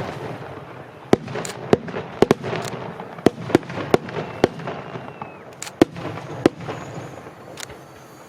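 Aerial fireworks shells bursting overhead: a dozen or so sharp bangs at irregular intervals over a continuous crackling rumble, with a faint whistle of a rising shell around the middle, the bursts thinning out near the end.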